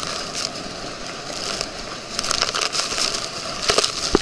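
Rushing wind and water noise from a tube being towed fast over choppy wake, with spray splashing against the camera in short bursts several times.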